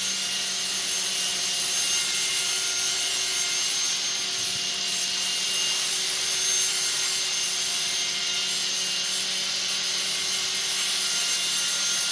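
Blade 300X electric RC helicopter hovering steadily: a rushing whir from its carbon fiber main rotor blades with a steady electric motor whine, no change in pitch, as the repaired rotor is checked for tracking and balance.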